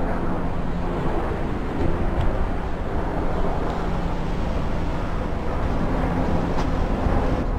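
Steady outdoor background rumble with a faint low hum, even throughout with no single event standing out.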